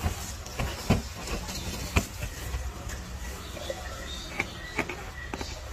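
A young macaque handling a large rubber balloon: a few sharp taps and knocks on the balloon as it grips and hugs it, over a low steady rumble.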